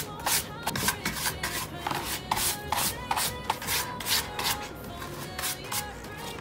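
A wooden-backed bristle brush swept back and forth over a dark brown leather notebook cover in quick hissing strokes, about three a second.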